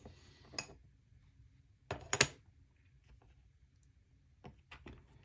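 Small sharp clicks and taps of folding-knife parts being handled and fitted together during reassembly: a single click early, a louder double click about two seconds in, and a few lighter clicks near the end.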